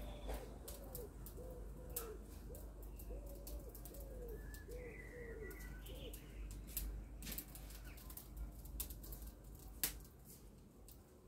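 A pigeon cooing, a run of low coos repeated about every half second that stops about six seconds in, with smaller birds chirping now and then. Scattered sharp clicks run throughout, with one louder click near the end.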